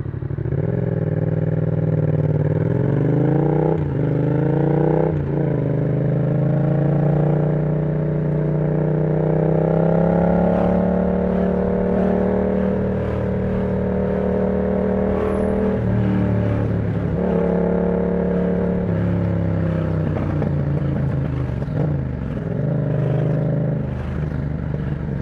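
Yamaha MT-07's 689 cc parallel-twin engine running through an aftermarket exhaust with the dB killer removed, under way on the road. The revs climb and break sharply twice about four and five seconds in, like quick gear changes. Then it pulls at a high, fairly steady pitch and eases off about sixteen seconds in and again near the end.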